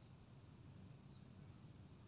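Near silence, with a faint low background rumble.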